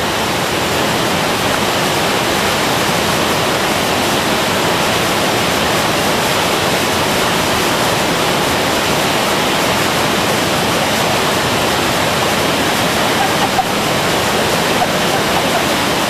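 Waterfall pouring over rocks: a steady, loud rush of falling water.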